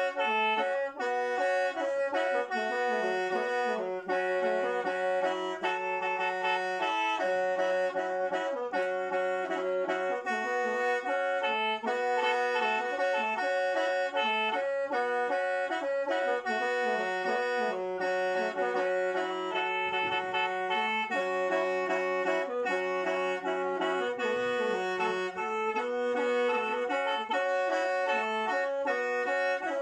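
Lao khaen, the bamboo free-reed mouth organ, playing a continuous melody over steady held drone notes.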